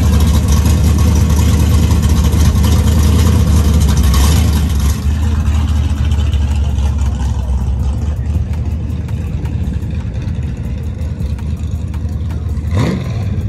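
Truck engine idling with a deep, steady rumble, loud for the first few seconds and then quieter; near the end a brief quick rising sweep.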